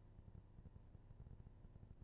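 Near silence: only a faint low hum and hiss.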